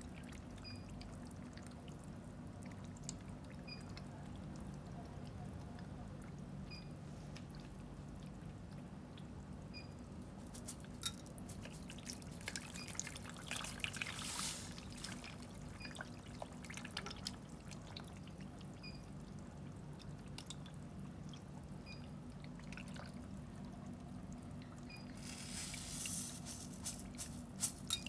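Catfish splashing and slapping at the water surface as they take feed, over a steady trickle of water and a low hum. The splashing swells twice, about 13 seconds in and again about 26 seconds in.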